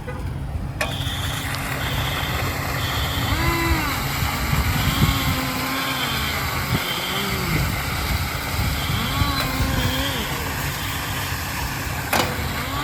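A fire engine's diesel engine runs at idle with a steady low rumble. Over it a high electronic beep repeats, one every half second to a second, in short groups with pauses between them. There is a sharp knock about a second in and another near the end.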